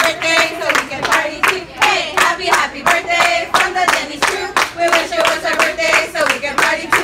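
A group of people clapping in a steady rhythm, about three claps a second, while singing a birthday song together.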